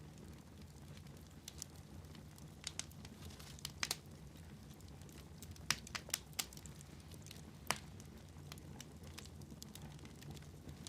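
Wood fire burning in a fireplace: scattered sharp crackles and pops over a low steady rumble, most of them between about four and eight seconds in.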